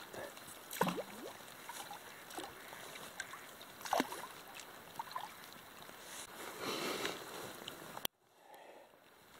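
Wooden pole paddle dipping into river water, each stroke splashing and dripping, about three seconds apart, with trickling water between. The sound drops off abruptly near the end.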